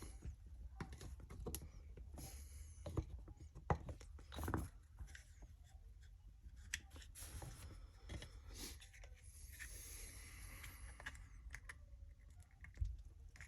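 Faint scattered clicks, taps and scraping of small Glock pistol parts being handled and fitted by hand, with a few sharper clicks near the end.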